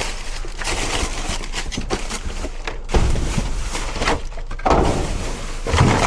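Trash being rummaged through in a dumpster: continuous rustling of bags and packaging, with a few heavier thuds and knocks of items being moved, about three seconds in, a little before five seconds, and near the end.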